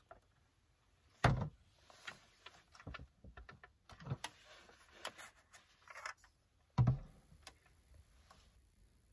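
Objects being handled and set down in a small car interior: two heavy thumps, about a second in and near seven seconds, among clicks, taps and rustling. This is an electric lunch box being placed and plugged in to warm food.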